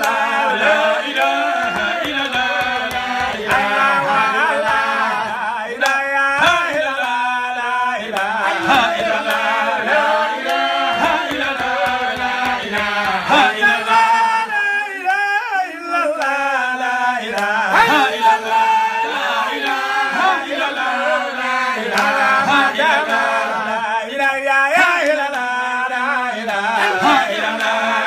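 A group of voices chanting a devotional song together, a continuous melody in long rising and falling phrases.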